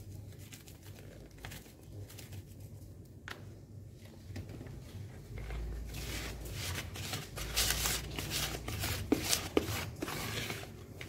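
A silicone spatula stirring and scraping a dry powder into a moist mash in a plastic bowl. There are only a few faint clicks at first; from about halfway it turns into a steady run of scraping with small clicks and the rumble of the phone being handled.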